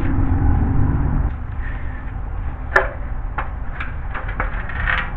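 Tie-down strap being fastened on the boat shelter's frame: a low rumble of handling, then a sharp snap a little before halfway, followed by a run of lighter, irregular clicks.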